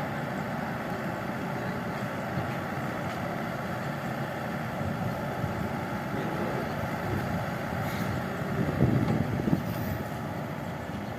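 Excavator's diesel engine running steadily, with a few louder rattles and knocks about nine seconds in.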